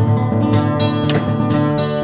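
Background music with a strummed guitar.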